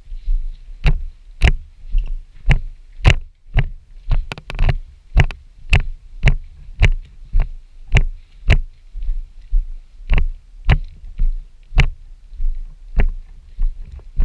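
Footsteps of a person walking at a steady pace, about two steps a second, each a heavy thud with a sharp click on top, as heard from a camera carried on the body.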